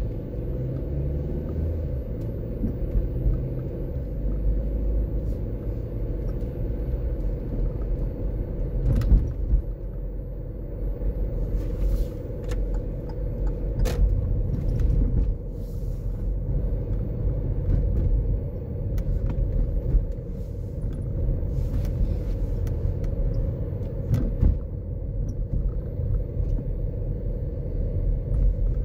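Steady low rumble of a car driving along a city street, heard from inside the cabin, with a faint steady hum and a few brief knocks.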